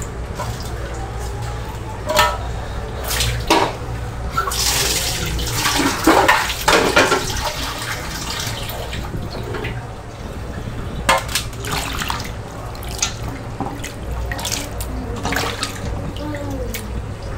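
Water sloshing and splashing in a steel bowl as sliced bitter gourd and potato strips are washed by hand, loudest about four to seven seconds in. Later come a few sharp clinks.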